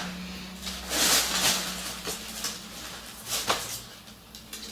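Clothes being handled: fabric rustling as one garment is put down and the next picked up, with soft swishes about a second in and again briefly around three and a half seconds, over a faint steady hum.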